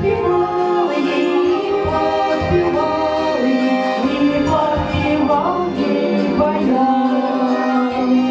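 Two women singing a Russian song as a duet into microphones, holding long sung notes.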